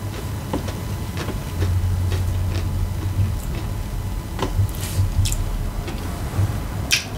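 Close-up chewing of a mouthful of taco salad, with scattered wet mouth clicks and smacks over a low rumble, and a sharper smack near the end.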